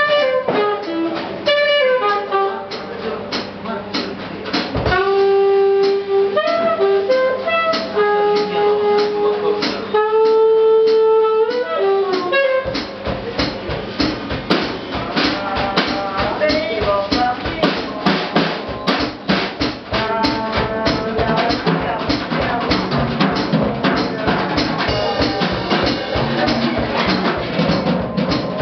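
Alto saxophone and drum kit playing live jazz. The sax holds long sustained notes over sparse drum hits, then about halfway through the drums take up a busy, steady stream of strokes while the sax keeps playing over them.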